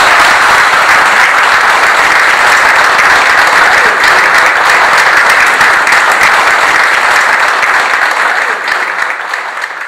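Audience applauding: dense, steady clapping from a roomful of people, fading a little near the end.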